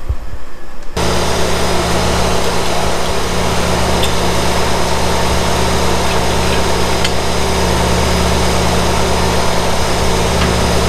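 A machine motor starts abruptly about a second in and runs steadily, a low hum with a dense hiss, without change.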